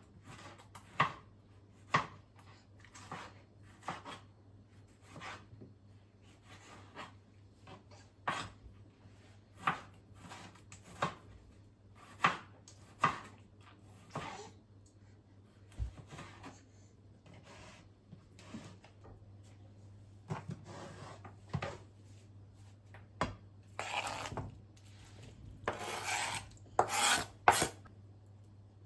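A series of sharp knocks and taps, roughly one a second, followed by rubbing and scraping sounds in the last few seconds.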